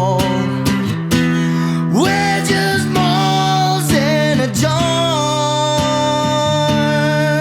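Guitar band music in a passage without lyrics, with a lead line that slides up about two seconds in and holds wavering notes over a steady low bass.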